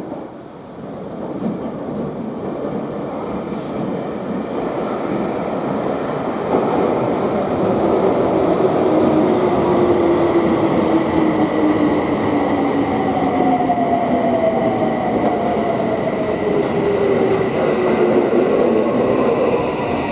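Electric commuter train pulling into the station, growing louder, its electric motors whining slowly down in pitch as it brakes.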